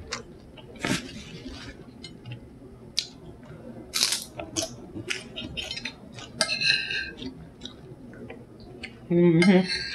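Close-up eating sounds of nachos: crisp bites into tortilla chips and chewing, with a metal fork clicking and clinking against the plate. A short hummed "mm-hmm" near the end.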